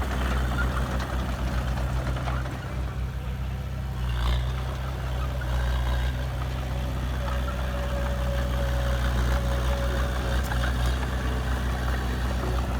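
Heavy diesel earthmoving machine running at a steady low drone, its engine note unchanging throughout.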